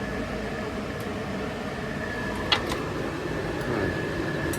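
Car engine idling steadily, with a thin steady high whine over it; the engine is smoking from leftover oil. A single sharp click comes about two and a half seconds in.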